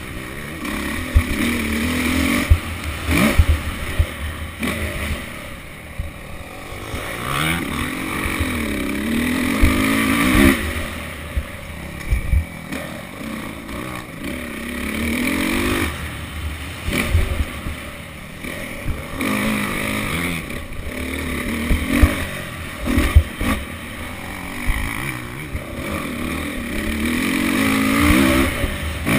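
Motocross bike engine being ridden hard, its pitch rising and falling over and over as the throttle opens and closes, with occasional sharp knocks and rattles.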